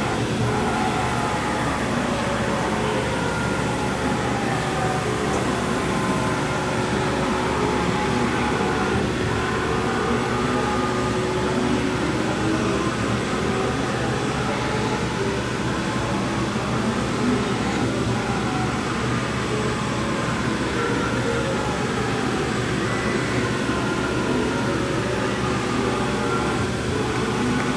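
YCM TV-158B vertical machining center running under power: a steady mechanical hum with faint whines that rise and fall in pitch.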